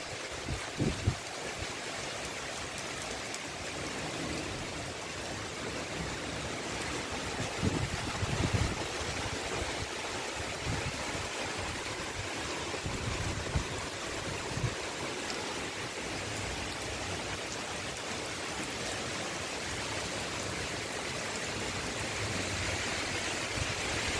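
Heavy rain falling steadily, a dense even hiss of water, broken by a few brief low bumps in the first several seconds.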